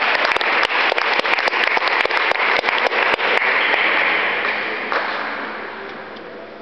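Audience applauding, with many sharp individual claps standing out, dying away after about four seconds.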